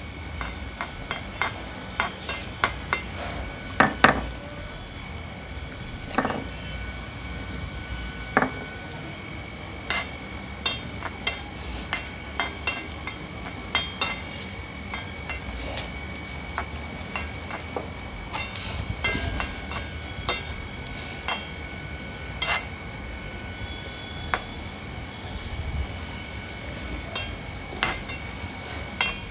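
Cashews and raisins sizzling in ghee in a small iron kadai, frying until golden. A ladle stirs them, scraping and clinking against the pan in many short, irregular knocks over a steady hiss.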